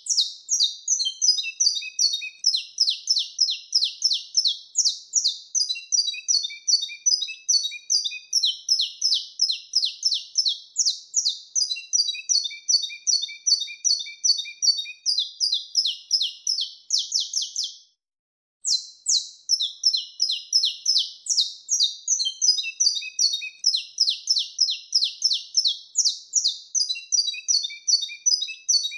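Saffron finch (canário-da-terra) singing its wild-type 'mateiro' song: a long, unbroken run of quick, high chirping notes. The song stops for a short gap partway through, then starts up again.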